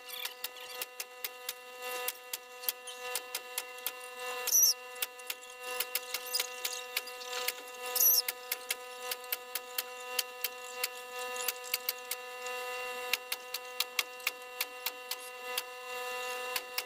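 Pneumatic staple gun firing staples through wire mesh into a wooden window frame in quick succession, sharp shots about three a second, over a steady hum. Two louder shots come about four and a half and eight seconds in.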